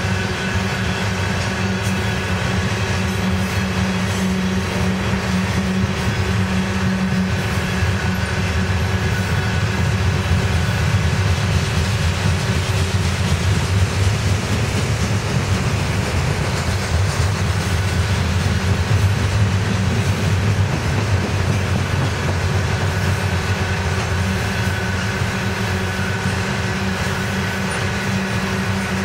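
Hopper cars of a CSX freight train rolling past close by: a steady rumble of wheels on the rails, with a faint steady high ring above it.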